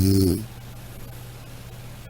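Snoring: a low-pitched snore with a breathy hiss fades out about half a second in, followed by a quiet pause before the next breath.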